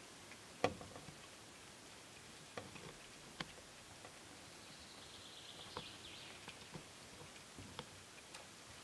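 Faint woodland sounds: scattered sharp clicks and knocks, the loudest about a second in, and a short high bird trill midway.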